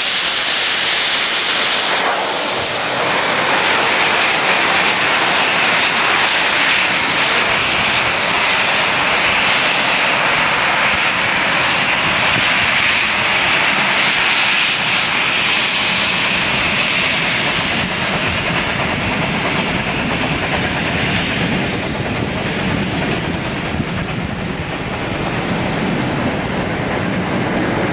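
A steam-hauled train of passenger carriages running past at speed, a steady rush of wheels on rail. The steam locomotive 34067 Tangmere's exhaust hiss fades in the first couple of seconds, and the diesel locomotive at the rear of the train passes near the end.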